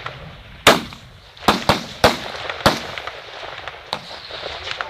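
M16 rifle shots on a range: about six sharp cracks at uneven intervals, each with a brief echo. The loudest comes about two-thirds of a second in, and several more follow in quicker succession between one and a half and two and a half seconds, with a last one near four seconds.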